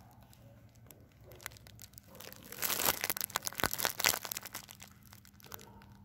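Rustling, crackling handling noise close to a phone's microphone, lasting about two seconds in the middle, over a steady low hum.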